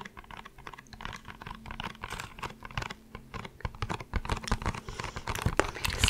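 Fingernails tapping on a small cardboard box in quick, irregular clicks.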